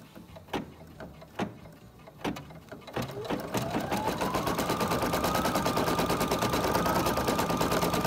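Brother PE800 embroidery machine resuming its stitching: a few separate clicks, then about three seconds in the motor starts with a whine that rises in pitch over a second or so. It then settles into fast, steady stitching with a rapid, even needle chatter.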